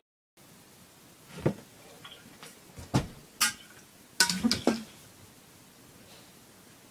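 An insulated water bottle being thrown and knocking about: a few separate knocks, the loudest about three seconds in, then a quick cluster of clattering hits just after four seconds.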